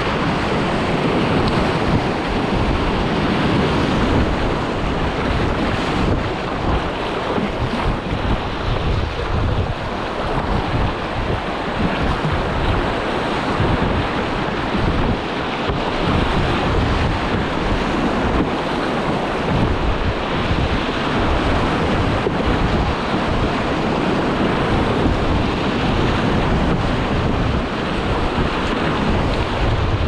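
Fast river water rushing and splashing around a wildwater racing kayak running rapids, with wind buffeting the microphone.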